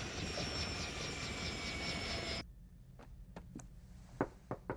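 Helicopter running close by on a ship's deck: a dense rush with a steady high whine over a rapid rotor beat. It cuts off sharply about halfway through, leaving a quiet room with a few light knocks and clicks.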